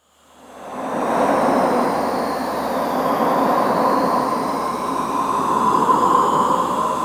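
Horror-style wind sound effect fading in over about a second into a steady, loud rushing with a whistling tone and swooping higher tones that rise and fall across each other.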